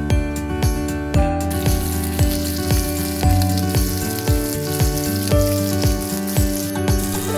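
Fish steaks sizzling as they fry in hot oil in a pan. The sizzle starts about a second and a half in and stops near the end, over background music with a steady beat.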